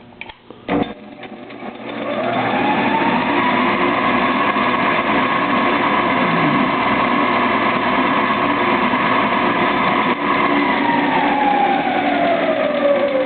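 Electric drill motor re-drilling the pin holes through a soldered knife bolster and liner. A couple of clicks come in the first second, then the motor whine rises in pitch, holds steady for several seconds and slows again near the end.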